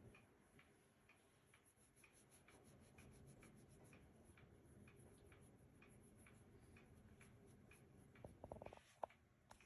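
Near silence with faint, steady ticking, about two to three ticks a second. A brief, slightly louder sound comes near the end.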